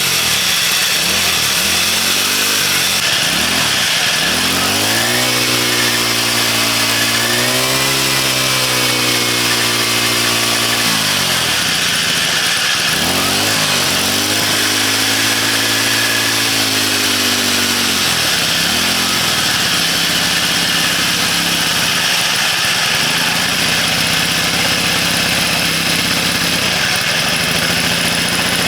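An engine running and being revved up and down several times, holding each higher speed for a few seconds, then settling to a steady idle about twenty seconds in.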